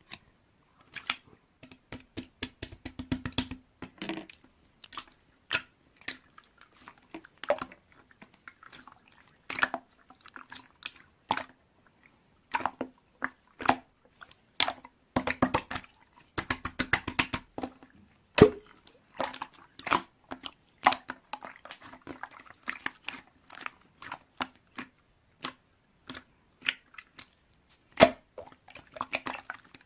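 Slime being squeezed and pressed by hand, with irregular runs of sharp clicks and pops from trapped air.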